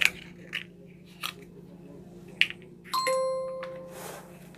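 Green snap-off utility knife clicking several times as its blade slider is pushed out. About three seconds in, a single chime-like ringing tone sounds and fades out over about a second.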